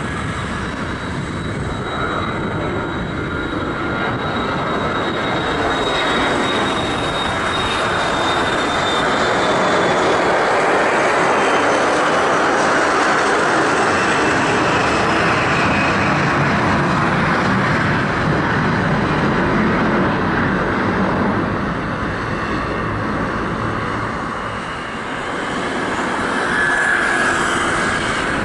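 Boeing 737-500's CFM56 jet engines at takeoff thrust as the airliner climbs out overhead: a steady loud roar that swells to its loudest about midway, with a high whine falling in pitch over the first several seconds. Near the end it gives way to the engine sound of a Boeing 777-300ER taxiing.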